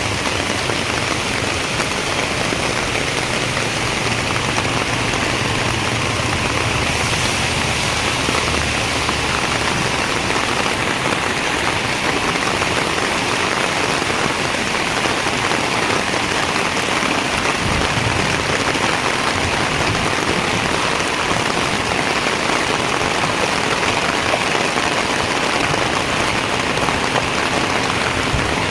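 Heavy rain pouring steadily, a dense even hiss of rain on surfaces.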